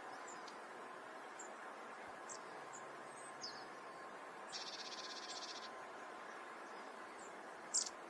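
Hokkaido long-tailed tits (shimaenaga) giving thin, very high calls. About halfway through comes a rapid buzzy trill lasting about a second, and near the end a louder single high call.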